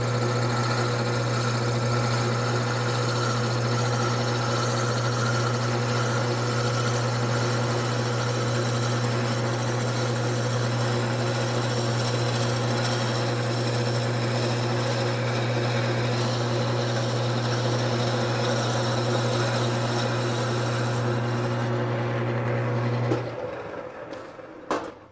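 Wood lathe motor running with a steady hum while a turning tool cuts the spinning wood blank, with a steady scraping hiss, as the blank is brought round. Near the end the lathe is switched off and the sound dies away quickly, followed by a sharp click.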